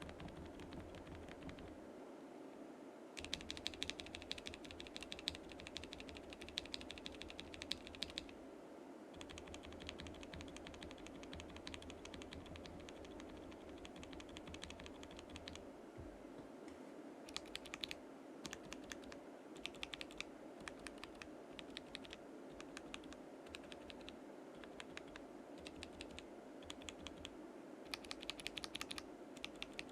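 Typing on a mechanical keyboard fitted with Akko CS switches, in a gasket-mounted KBD67 Lite case with a polycarbonate plate. The key clacks come in several stretches of fast typing separated by short pauses.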